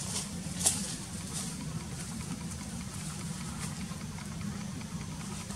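An engine running steadily, heard as a low, even rumble, with one sharp click about two-thirds of a second in.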